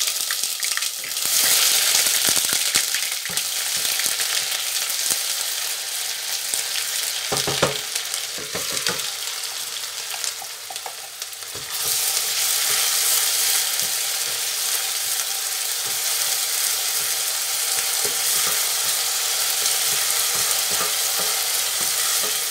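Ground onion paste sizzling in hot oil in a stainless steel pot while being stirred with a wooden spoon. The sizzle eases for a few seconds near the middle, where there are a few knocks of the spoon, then comes back strong about twelve seconds in.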